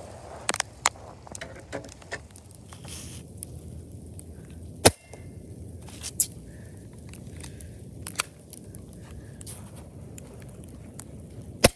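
Airsoft pistol firing single shots at a bicycle helmet: a few sharp, separate cracks, the loudest about five seconds in and just before the end, with lighter clicks and taps in the first two seconds.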